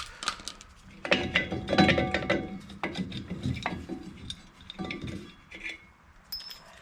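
Brake-shoe hold-down spring retainers and cups on a jeep's rear drum brake being twisted and worked loose, steel parts clicking and clinking irregularly with short metallic rings.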